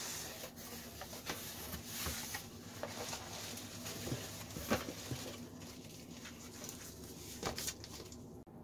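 Corrugated cardboard shipping box being opened by hand: flaps folded back and an inner cardboard box pulled out, with cardboard scraping and rustling and a few sharp knocks.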